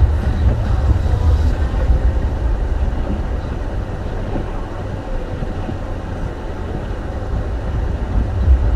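Car driving on a snowy road: a steady low rumble of tyre, road and engine noise with no sharp events.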